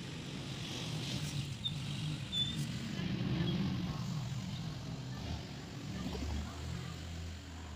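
Low rumble of a motor vehicle's engine, loudest about halfway through, then lower and easing off.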